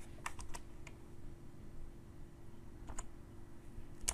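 A few computer keyboard keystrokes: three quick taps just under half a second in, another about three seconds in, and one more at the end, over a faint steady hum.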